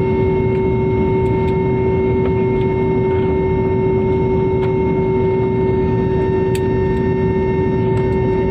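Jet airliner engines heard inside the cabin as the aircraft taxis: a steady rumble with several steady whining tones held unchanged.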